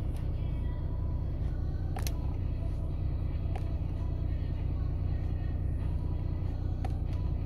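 Renault T480's 13-litre six-cylinder diesel idling steadily with a low rumble, heard from inside the cab. Three sharp clicks sound over it, about two, three and a half, and seven seconds in.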